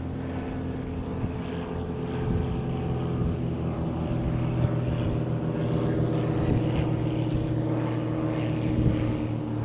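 Airbus A320 engines running steadily: a low, even hum over a rushing noise that grows slightly louder about four seconds in.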